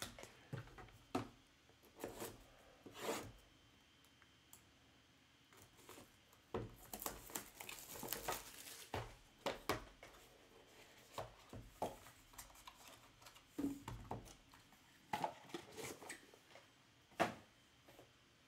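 A sealed trading-card box being opened and its contents handled. Scattered taps and clicks of cardboard and hard plastic card holders, with a few seconds of tearing and crinkling of the wrapping about seven seconds in.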